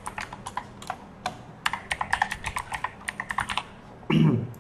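Typing on a computer keyboard: a quick, uneven run of key clicks while a username and password are entered into a login box, stopping about three and a half seconds in. Near the end a person makes a short voiced sound that falls in pitch.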